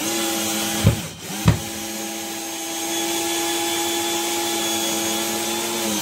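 Bosch GSB 120-LI 12 V cordless drill-driver running steadily under load as it drives a long 9 cm screw into a wooden board, with two sharp knocks about a second and a second and a half in.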